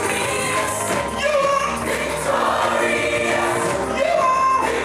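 Gospel vocal group singing in harmony over a live band, with held sung notes throughout.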